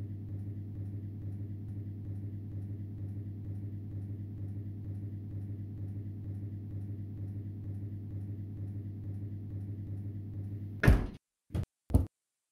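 A low, steady hum, then a loud thump near the end followed by two short knocks in quick succession.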